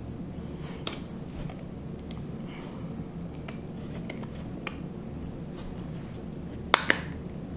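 An iPhone 5 display assembly being pressed into the phone's frame: a few faint ticks, then two sharp snaps close together near the end as its clips click into place, the sign that the screen is seating properly.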